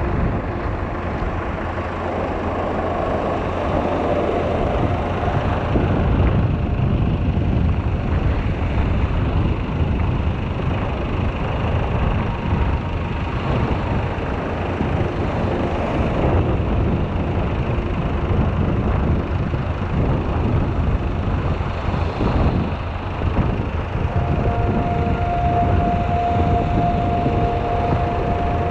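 Strong wind buffeting the microphone: a steady, loud low rumble with a rushing hiss over it.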